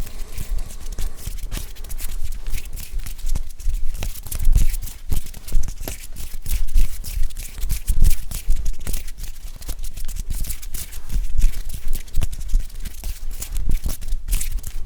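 ASMR hand sounds close to the microphone: hands rubbing, brushing and tapping, a dense run of crackling clicks and rustles with soft low thumps.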